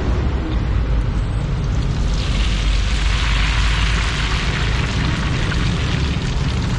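A handful of rice vermicelli sizzling as it is deep-fried in hot oil in a wok, the frying hiss coming up strongly about two seconds in. A steady low rumble runs underneath.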